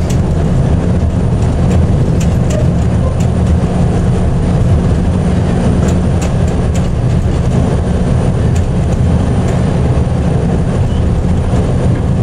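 DSA-class diesel shunting locomotive running along the line, heard from its cab: a steady, loud, low engine drone with scattered short clicks from the running gear on the track.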